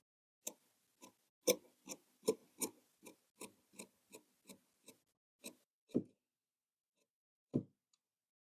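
A tailor's hand tools working on cloth or pattern paper: a run of about a dozen short, sharp strokes at roughly three a second, then two single strokes near the end.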